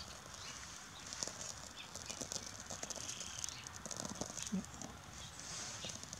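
Faint, scattered crackling and clicking as birch-bark tinder and small dry sticks in a stick stove are lit and start to catch.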